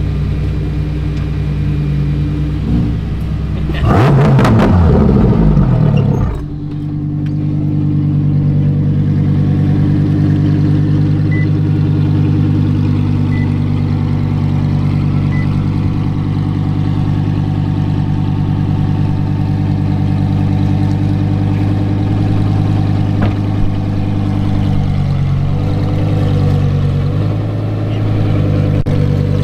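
Lamborghini supercar engine idling with a steady low drone. It revs up hard about four seconds in and drops back to idle about two seconds later.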